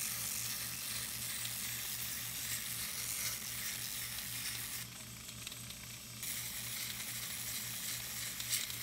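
Foredom flex-shaft rotary tool at low speed spinning a 120-grit sandpaper sleeve on a soft rubber contour-sanding mandrel, sanding a holly wood knife handle: a steady scratchy hiss over a low motor hum. The hiss eases off briefly about five seconds in.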